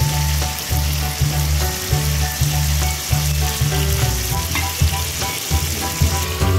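Tomato gravy with eggplants sizzling and bubbling in a frying pan, a steady hiss. Background music runs underneath, with a heavy pulsing bass and short high notes.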